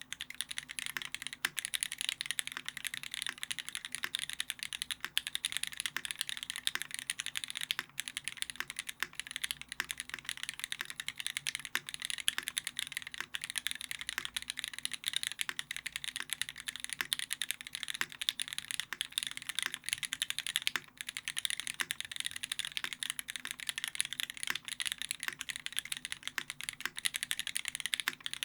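Steady fast typing on a Keycult No.2 rev.1 custom mechanical keyboard with a brass plate, lubed and filmed vintage Cherry black (G80-1000HAD) linear switches and GMK keycaps: a dense, continuous stream of key clacks.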